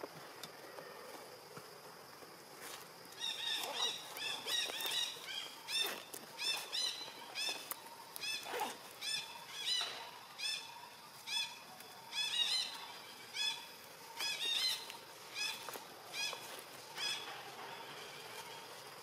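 A bird calling over and over: a rapid series of short, arching chirps, about two a second, starting about three seconds in and dying away near the end. A faint, steady, high-pitched hum runs underneath.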